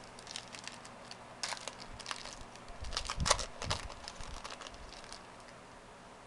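A foil trading-card pack crinkling and cards being handled, heard as an uneven run of short crackles and clicks that dies away about five seconds in.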